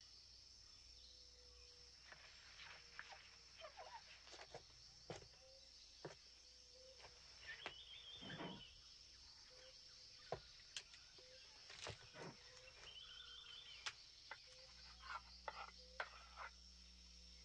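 Faint insect ambience: a steady high-pitched insect drone, with scattered soft clicks and two short chirping calls, about eight and thirteen seconds in.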